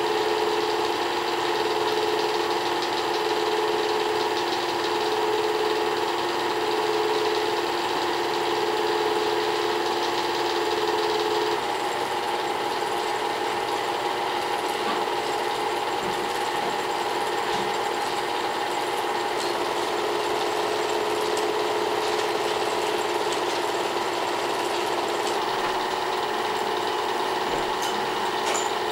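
Small-gauge home-movie film projector running: a steady mechanical whir of its motor and film transport with a constant hum. About twelve seconds in, the hum shifts in pitch and drops slightly.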